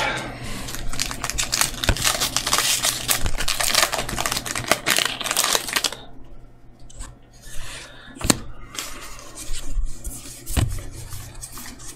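Foil Magic: The Gathering set booster pack wrapper crinkling and being torn open for about six seconds. Then quieter card handling with a couple of sharp clicks.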